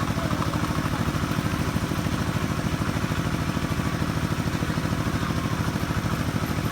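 A small engine running steadily with a fast, even pulsing beat.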